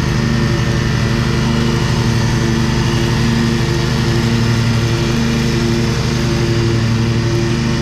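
Cub Cadet riding lawn mower engine running steadily at full throttle with the blades engaged, cutting grass.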